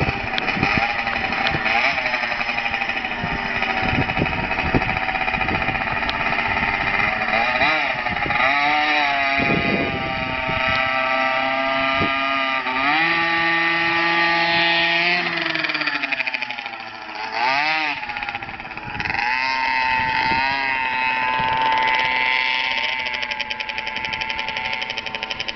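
Blata B1 pocket bike's small two-stroke engine revving up and down as it is ridden, its pitch rising and falling with the throttle. It eases off briefly about two thirds of the way through, then picks up again.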